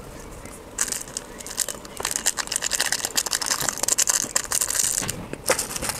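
Foil Maggi masala sachets crinkling and tearing as they are torn open and squeezed empty, an irregular rustle full of small crackles.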